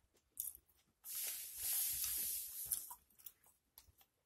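Close-miked chewing of a pulled pork sandwich, with small wet mouth clicks, and a loud hiss of about two seconds in the middle.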